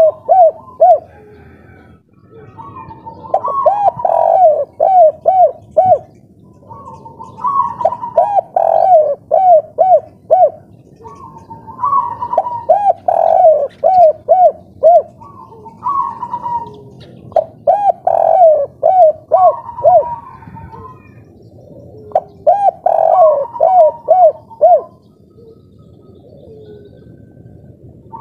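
Spotted dove of the 'kuk 3' song type cooing, its phrase of rounded notes followed by a quick run of short coos repeated every few seconds. There is a longer pause near the end.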